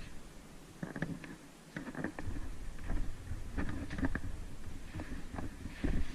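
Movement noise from a player carrying the camera: irregular footsteps, knocks and gear rustling over a low rumble of handling.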